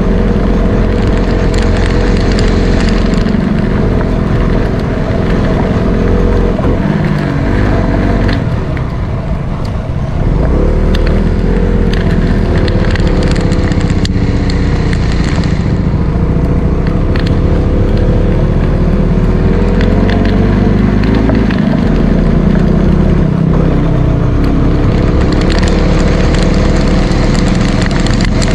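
Motorcycle engine running under way. Its pitch sinks as it slows about a third of the way through, then climbs again as it picks up speed.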